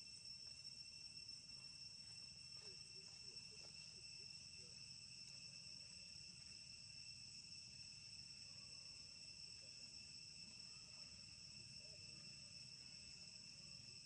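Faint, steady chorus of insects: an unbroken high-pitched drone in several pitches at once.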